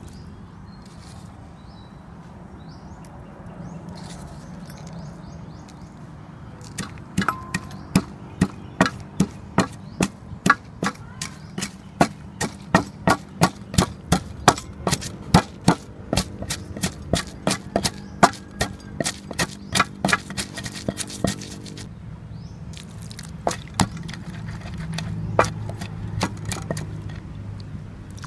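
Wooden pestle pounding garlic cloves in a heavy wooden mortar, a steady run of sharp wooden knocks about two to three a second, starting about seven seconds in. The strokes pause briefly, then pick up again, slower and more spread out, near the end.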